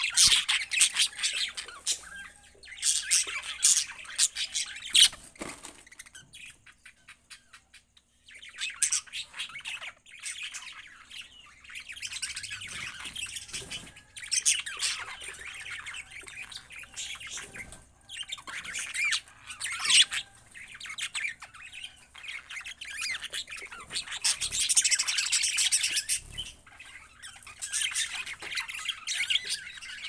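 A flock of budgerigars chattering, chirping and squawking in overlapping bouts, with a brief lull about six to eight seconds in.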